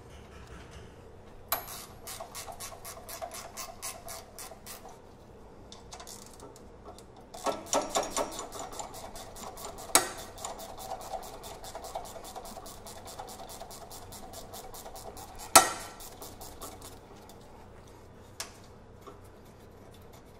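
Ratchet wrench clicking rapidly as a penetrating-oil-soaked bolt is backed out of the frame rail. The clicking comes in two long runs, with a louder sharp metallic click about fifteen seconds in.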